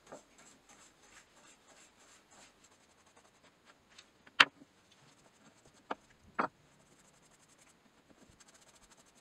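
Bristle brush stroking liquid finish onto small pine blocks, soft scratchy strokes repeated about three times a second, then faster near the end. A sharp knock on the wooden bench about four seconds in, the loudest sound, and two smaller knocks a second and a half to two seconds later.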